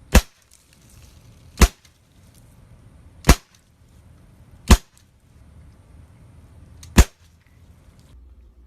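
Five sharp, loud bangs, each very short, spaced about one and a half to two seconds apart, the last after a longer gap.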